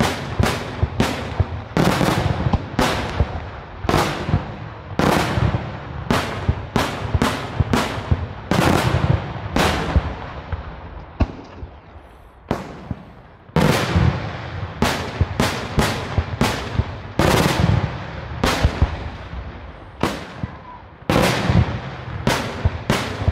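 Daytime fireworks: a rapid, irregular volley of loud aerial bangs from shells bursting in puffs of smoke, each bang trailing off with a short echo. The barrage thins to a few reports about halfway through, then resumes at full pace.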